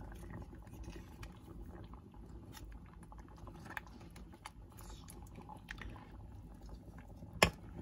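A plastic ladle pushing salmon heads down into a simmering pot of sinigang broth: small irregular clicks and scrapes over the low bubbling of the broth, with one sharp knock of the ladle against the pot near the end.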